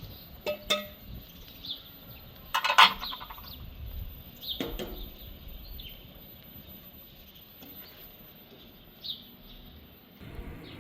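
Small birds chirping now and then, with a few sharp knocks and a short loud clatter about two and a half seconds in.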